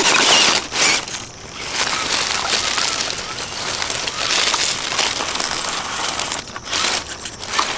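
Continuous gritty crunching and scraping on loose stone and grit over rock.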